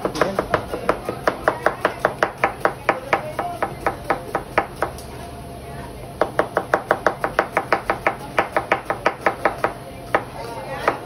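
A kitchen knife chopping food on a cutting board in quick, even strokes, about four or five a second. The chopping pauses about five seconds in, picks up again about a second later, and stops near the end with one last knock.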